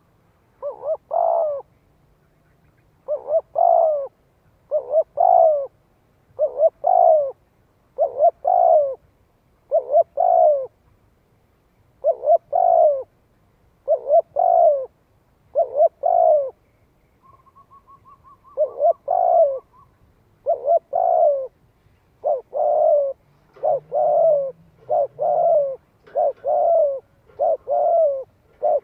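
A spotted dove cooing over and over in an urgent decoy call: short phrases of two or three coos, roughly one phrase every one to two seconds and coming faster near the end. A faint rapid ticking comes briefly between phrases about two-thirds of the way through.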